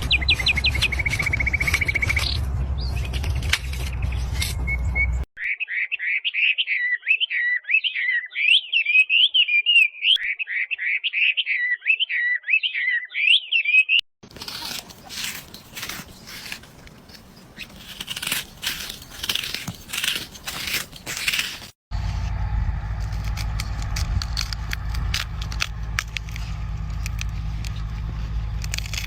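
Separate clips cut together. A low rumble with clicks comes first. A bird sings a rapid, warbling, chirping song from about five seconds in to about fourteen. Then come crisp crackling and snapping sounds, followed by a steady low hum with light clicks near the end.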